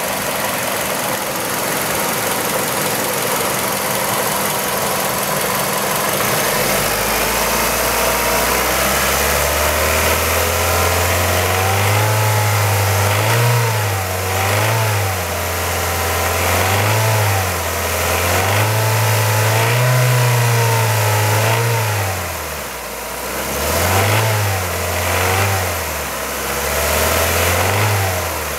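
Kia Ceed's 1.6-litre G4FC four-cylinder petrol engine, warm, with a rattle noise. It idles steadily for several seconds, then is revved up and down repeatedly.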